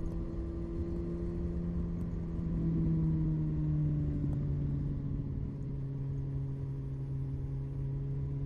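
Kawasaki Z1000SX's inline-four engine running steadily while riding, its note easing slightly lower about four seconds in, over low wind and road rumble.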